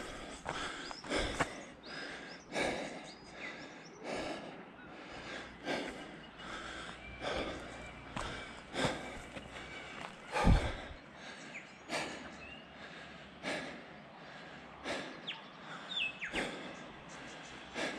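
A hiker's heavy breathing after a hard climb, one loud breath about every second and a half, with a stronger gust about ten seconds in.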